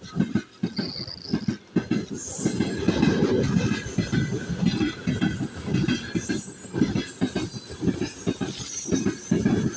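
Train wheels clattering over the rail joints: a rapid, uneven run of knocks.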